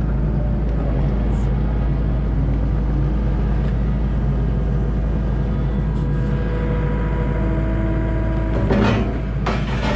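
Engine of heavy construction equipment running steadily with a low drone, with a brief louder knock or rattle near the end.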